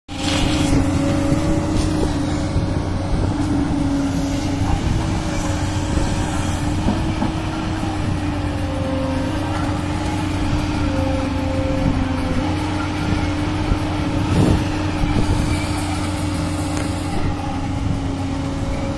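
Tracked excavator's diesel engine working under load while digging and loading soil, with a steady whine that shifts slightly in pitch as the arm moves. A single sharp knock about fourteen seconds in.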